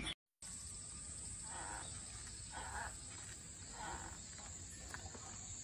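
Faint outdoor background with a steady, high-pitched insect drone and three soft, indistinct sounds.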